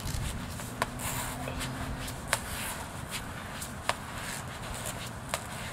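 An oval football slapping on a concrete path and being handled: four sharp knocks about a second and a half apart, over steady low background noise.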